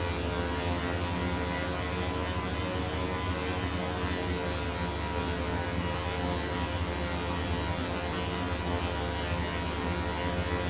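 A steady buzzing drone of many tones held together like a chord, over a hiss, with no change in pitch or loudness.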